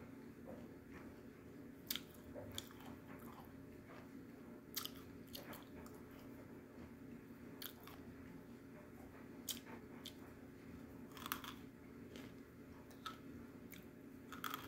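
Crunchy baked edible clay being chewed: sharp, crisp crunches every second or two as pieces break between the teeth.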